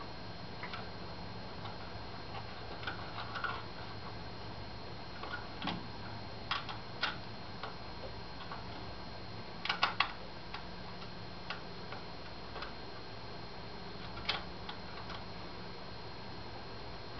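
Scattered small clicks and taps of hands handling the drive belt and its bolted clamp on a RepRap 3D printer's aluminium-extrusion Y-axis frame while taking up slack in the belt, over a steady low hum. A quick run of three clicks comes about ten seconds in.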